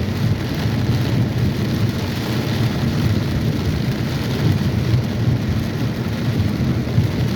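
Heavy rain pouring down, a dense steady hiss with a low rumble underneath.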